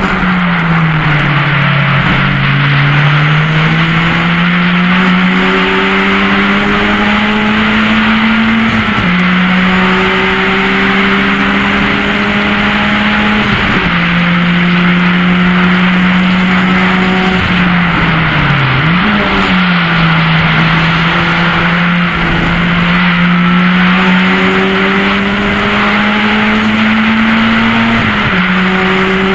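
Mk1 VW Golf race car's four-cylinder engine heard from inside the cabin, held at high revs with its pitch climbing slowly and dropping at upshifts around 9, 14 and 28 seconds. Near the start and again about 19 seconds in, the revs fall and then jump with a throttle blip on a downshift. A steady hiss of tyre and wind noise runs underneath.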